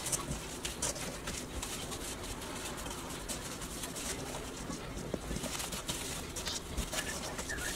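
Gloved hands tossing oiled, seasoned potato wedges in a stainless-steel bowl: a steady wet rustling and squishing with many small clicks of wedges against each other and the bowl.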